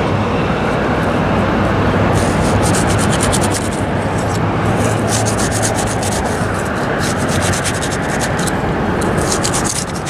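A hand rubbing and pushing through thick turfgrass into the soil close to the microphone: steady rustling and scraping, with bouts of gritty crackling as the fingers grind against gravel in the soil.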